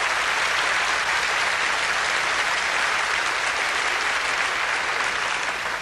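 Audience applauding, steady and sustained, beginning to die down near the end.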